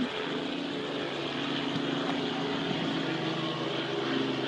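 A steady engine drone with a few even low tones, over a constant background hiss.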